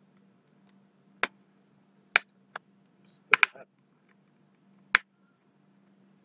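Sharp plastic clicks and snaps of a feature phone's back cover being pried off with the fingers: about half a dozen short clicks at irregular intervals, two of them close together a little past the middle.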